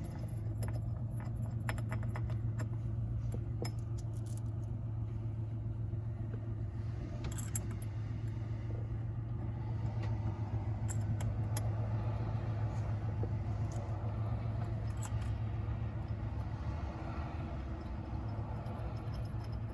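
Small metal parts clinking and ticking now and then as the steering hub and quick release hardware are handled, over a steady low hum.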